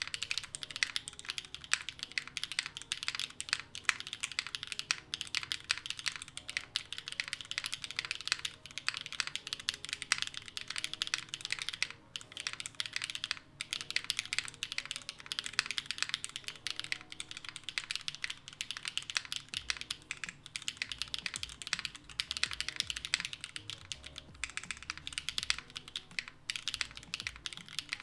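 Continuous fast typing on a gasket-mounted custom mechanical keyboard with Gateron Onyx linear switches and a carbon fiber plate: a dense run of keystrokes, with a couple of brief pauses about halfway through.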